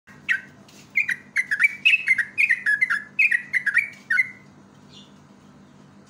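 Yellow-vented bulbul singing: a single note, then about three seconds of rapid, short, downward-slurred whistled notes, stopping about four seconds in.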